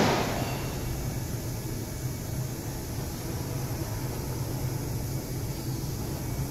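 Steady low hum and hiss of a CNC vertical machining centre idling, its spindle not cutting. Right at the start a short, loud burst of noise fades away within about half a second.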